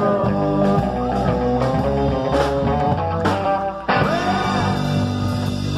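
Live rock and roll band playing, with electric guitar and upright double bass.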